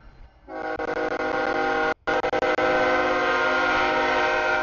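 Diesel locomotive's air horn blowing a chord of several steady tones: one blast starting about half a second in, a brief break about two seconds in, then held to the end. It is the warning sounded for a grade crossing.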